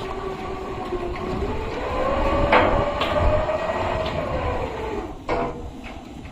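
Lifeboat launching gear running: a mechanical whine that climbs in pitch and then falls away, with a sharp metallic knock near the middle and another about five seconds in.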